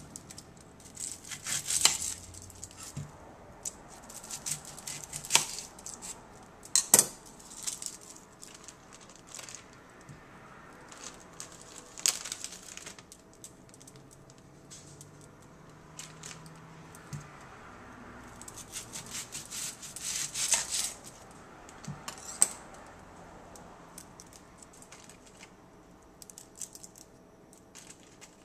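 Kitchen knife cutting bell pepper and red onion on a countertop: scattered sharp knocks of the blade against the surface, with two runs of quick chopping taps near the start and about two-thirds of the way through.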